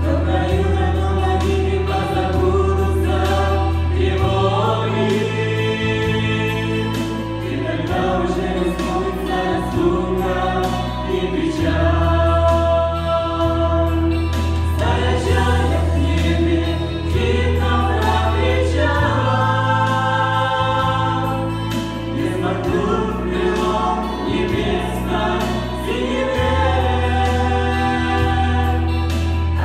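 A choir singing a Christian song with accompaniment, over held bass notes that change every few seconds.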